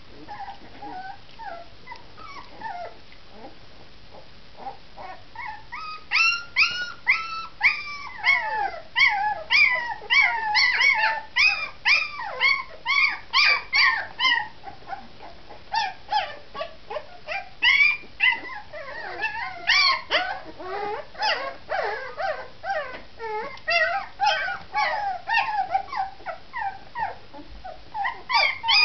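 Litter of 19-day-old Bergamasco puppies whining and crying. The cries are faint at first, then from about six seconds in they become a loud, dense chorus of short, overlapping high cries.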